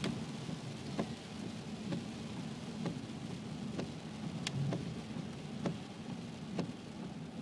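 Rain on a moving car and its tyres on the wet road, heard from inside the cabin: a steady low rushing hum broken by sharp ticks about once a second.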